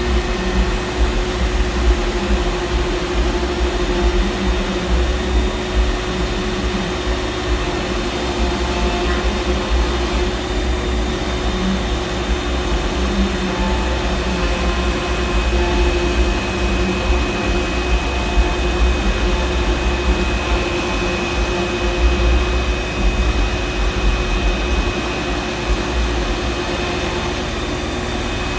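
Fox Alien 4040 CNC router running, its 300-watt spindle spinning at a steady pitch over a continuous machine noise with an uneven low rumble.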